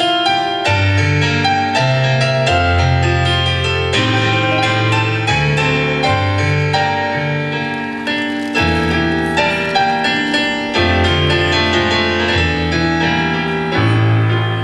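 Grand piano playing an instrumental interlude: chords over a moving bass line, with no voice.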